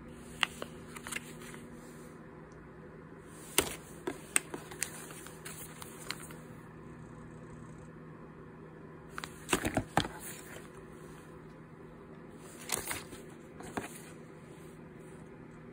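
Foil sample sachets and a card insert being handled: short bursts of crinkling and sharp clicks, about five times, over a steady low hum.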